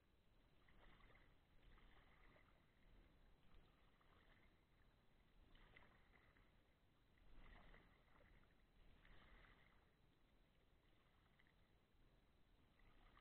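Faint splashes of a kayak paddle dipping into calm river water, a stroke every second or two.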